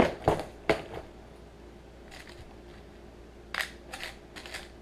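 Clear plastic tackle box set down on a table with a knock, then plastic clicks and rattles as it is opened and its compartments are picked through.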